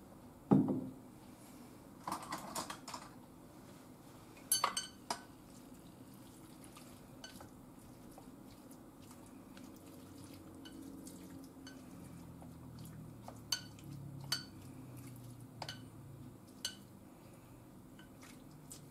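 Chopsticks clicking and scraping against a ceramic bowl while mixing seasoning into raw meat, in sparse, irregular taps. A dull knock about half a second in.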